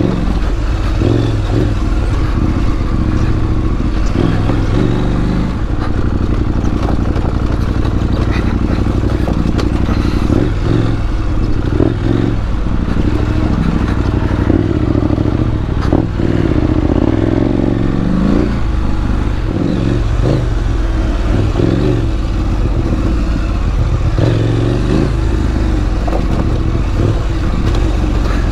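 KTM 790 Adventure R's parallel-twin engine running as the bike is ridden over rocky singletrack, with occasional knocks and clatter from rocks under the wheels.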